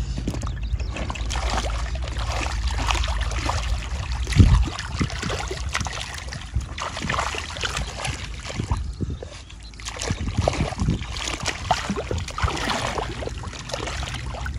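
Water sloshing and splashing in irregular strokes, as hands work in shallow muddy water. A low rumble runs through the first few seconds, and there is a thump about four and a half seconds in.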